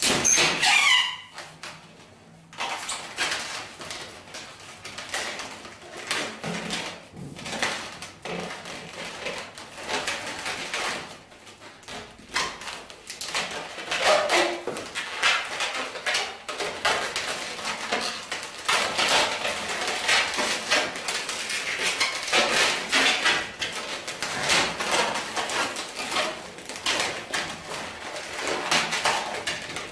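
Latex 260 twisting balloons squeaking and rubbing against one another as they are twisted and woven by hand. The squeaks and creaks come in an irregular run, with a rising squeak at the start.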